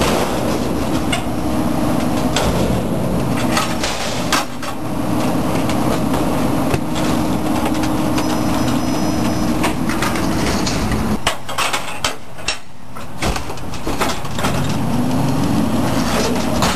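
Garbage truck engine running at raised revs to power the hydraulics of a Leach 2R III rear-loader tipper as a steel dumpster is tipped and lowered, with metal clanks and bangs from the container. About eleven seconds in the engine note drops and loose knocks follow, then the revs rise again near the end as the next lift starts.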